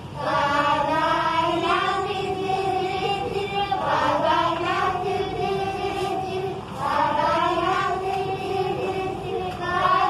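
Group of young children singing together, phrases of held notes with brief pauses for breath between them.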